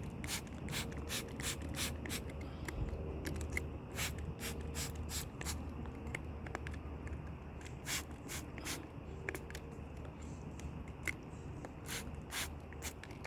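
Handheld spray bottle squirting water onto a car's rear window, many quick short squirts in an uneven run, a couple each second.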